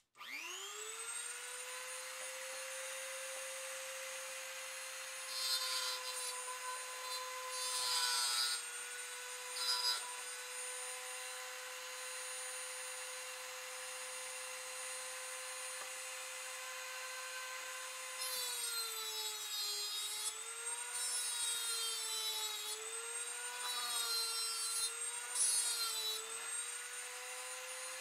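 Dremel rotary tool with a metal cut-off wheel, mounted in a router base, spinning up to a steady high whine. It makes brief grinding contacts with the metal T-nut a few times between about 5 and 10 seconds in. From about 18 seconds in, its pitch dips and wavers as the wheel bites into the metal under load.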